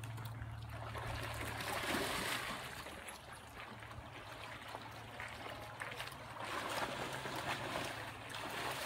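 River water trickling and sloshing as dogs swim and paddle in it, swelling about two seconds in and again near the end, over a steady low hum.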